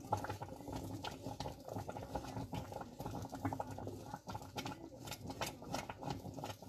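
Rice and milk simmering in a stainless steel pot, bubbling with faint, irregular small pops while a wooden spoon stirs it along the bottom.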